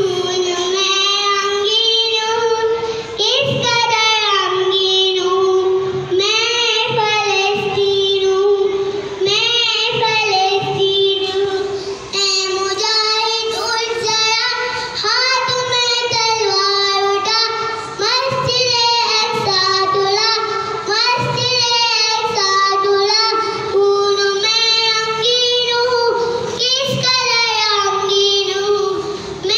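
A young girl singing an Urdu nazm solo into a microphone, holding long, wavering notes.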